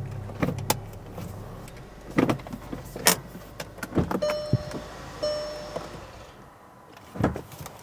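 A 2018 VW Jetta's 1.8-litre turbocharged four-cylinder idles low and steady on freshly fitted spark plugs, with scattered clicks and knocks from the car. Two short chime tones sound around four and five seconds in, the engine is switched off about six seconds in, and a thump follows near the end.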